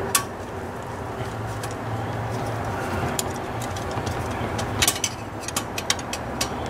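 A few sharp metallic clicks as a magnetic pickup tool is worked down among engine-bay parts to catch loose bolts, one right at the start and a cluster near the end, the loudest a little before five seconds in, over a steady low hum.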